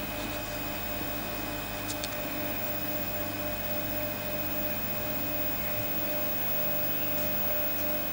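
Steady electrical mains hum over a hiss, with a couple of faint ticks about two seconds in.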